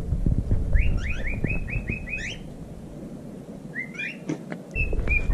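Water sloshing and lapping against a plastic kiddie pool as a small dog paddles, with a bird chirping a quick run of rising notes about a second in and a few more chirps near the end.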